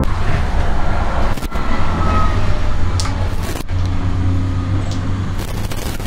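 Road traffic noise: a steady rumble of passing vehicles, broken by a couple of abrupt short gaps.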